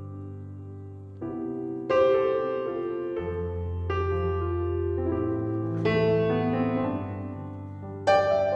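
Background music: slow piano chords, a new chord struck every second or two and left to ring.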